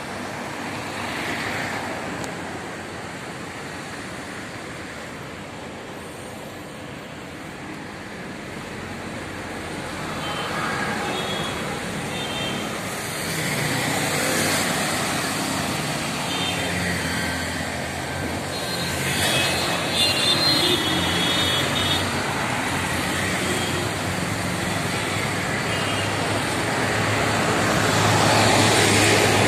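City road traffic: buses, cars and auto-rickshaws running past with engine and tyre noise, with a few short high tones in the middle. It grows louder near the end as a bus passes close by.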